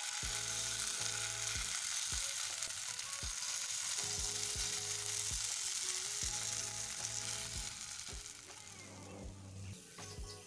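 Rice batter sizzling as it is shallow-fried in hot oil in a nonstick frying pan. The sizzle starts suddenly and fades out after about eight seconds. Soft background music plays underneath.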